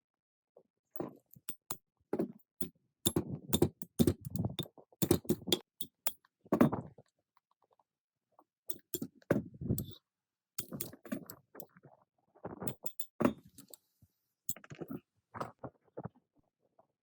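Metal parts and tools clinking, knocking and rattling as they are handled, in irregular runs with a pause of about a second near the middle.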